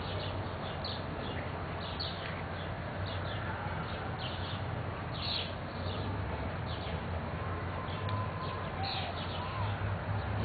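Backyard songbirds chirping: many short, high chirps repeating throughout, with a few sliding whistled notes late on, over a steady low hum.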